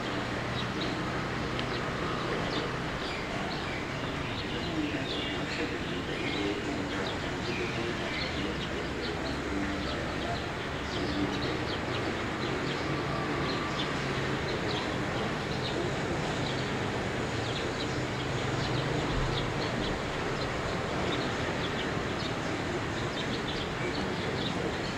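Steady outdoor background noise with frequent short bird chirps scattered through it and a faint low hum underneath.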